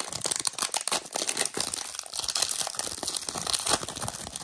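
Foil wrapper of a trading-card pack being torn open and crinkled by hand: a dense run of sharp crackles.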